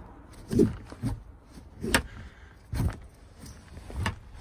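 A webbing strap is pulled through its buckle to tie down a campervan's lowered pop-top roof, giving about five handling knocks roughly a second apart, with a sharp click about two seconds in.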